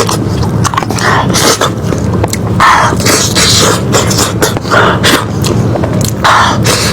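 Close-miked eating of lamb head: loud wet chewing, sucking and slurping, broken by many sharp mouth clicks.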